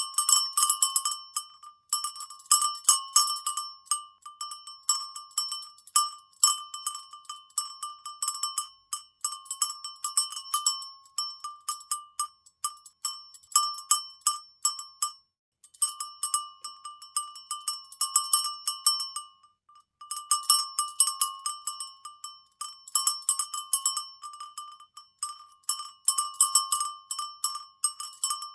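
A cowbell being shaken, its clapper clanking in quick, irregular strikes that each ring with a bright metallic tone. The clanking stops twice, briefly, around the middle.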